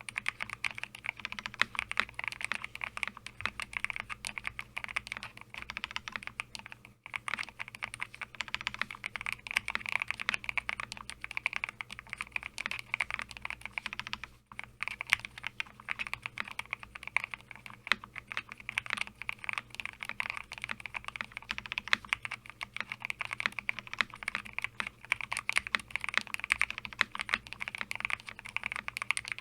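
Steady typing on a home-made mechanical keyboard with a Lego-brick case, hand-lubed Glorious Lynx linear switches and white keycaps. The keystrokes come in a dense stream, with two brief pauses: about seven seconds in and about halfway through.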